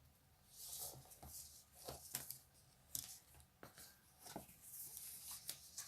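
Faint rustling and light taps of photocards being handled and laid down while they are sorted, a few scattered soft clicks.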